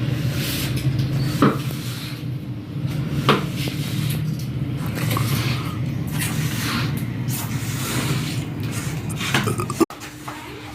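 A steady low machine hum with clatter and a few sharp knocks, the loudest just before the end.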